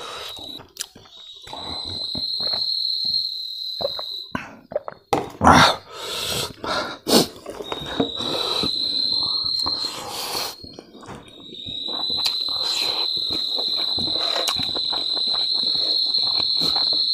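Insects buzzing in a steady high-pitched drone that starts about a second in, breaks off at about four seconds, returns for a few seconds, and then holds on from near twelve seconds. Under it are close-up chewing and eating noises, with a loud knock about five and a half seconds in.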